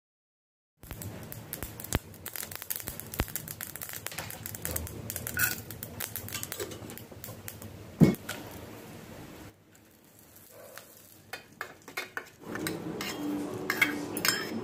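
Mustard seeds crackling and popping in hot oil in a small steel pan as urad dal, red chilli and curry leaves fry for a tempering, with a sharp knock about eight seconds in.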